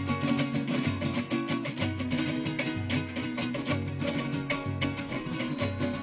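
Golpe tocuyano played instrumentally by a traditional Venezuelan string ensemble: cuatros and guitars strummed in a fast, even rhythm, with a low bass note about twice a second.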